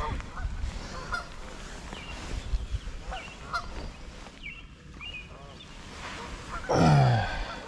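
Geese honking repeatedly in short, scattered calls. Near the end comes one louder call that drops steeply in pitch.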